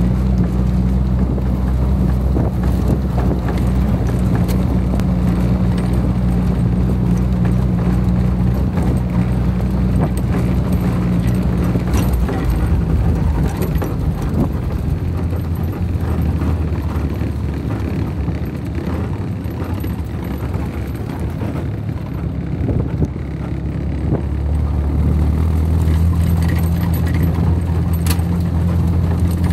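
WWII-era military jeep's four-cylinder engine running on a dirt track, heard from aboard, with occasional knocks and rattles from the body over bumps. The engine note drops and quietens about halfway through, then picks up again near the end.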